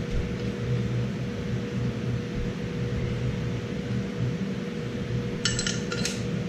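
Steel cylinder-head bolts clinking against each other and the cast-iron head as they are handled, a quick cluster of ringing clinks near the end, over a steady low background hum.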